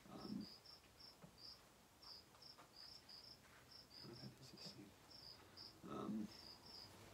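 Faint insect chirping, most likely a cricket, in short high pulses repeating a couple of times a second over near silence. A few soft low sounds come in near the start and around four and six seconds in.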